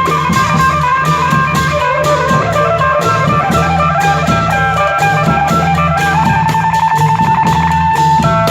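Band music in a fon dance rhythm: a plucked, guitar-like electric lead over a steady drum-kit beat. About six seconds in, the lead turns to a fast run of repeated notes on one pitch.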